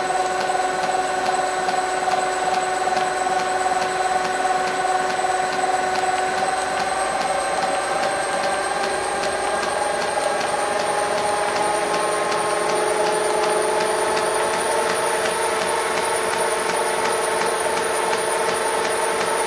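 1957 CVA toolroom lathe's 4 HP three-phase motor running on a Huanyang VFD. Its whine rises steadily in pitch over several seconds as the drive frequency is stepped up from 50 Hz to about 60 Hz, then holds. A regular clunk comes from the drive belt, which is coming apart at its join.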